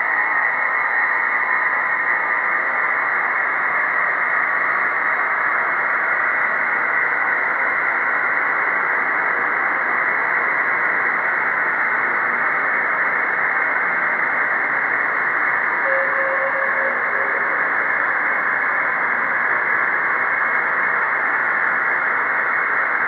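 Computer-synthesized sonification of the logistic map in its chaotic regime: a steady, dense, noise-like drone, dull with no high end, played through reverb and delay effects. A faint steady tone rises briefly out of the noise about sixteen seconds in.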